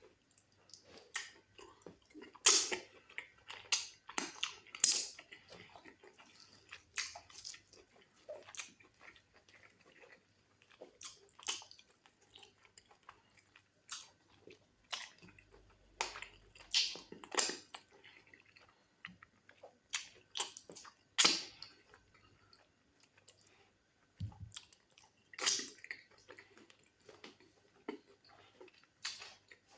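Mouth sounds of eating fufu with black soup and goat meat: wet chewing with irregular sharp smacks and clicks.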